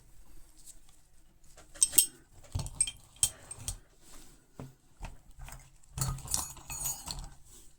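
Metal hand tools clinking and knocking as they are handled and set down on a table, in short irregular clusters of clinks with quiet gaps between.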